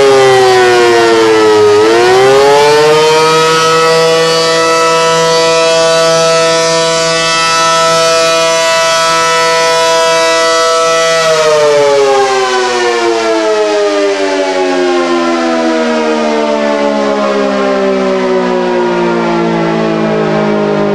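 Allertor outdoor warning siren sounding on test, loud. Its pitch dips over the first couple of seconds, climbs back and holds a steady tone, then about eleven seconds in it starts winding down in a long falling glide.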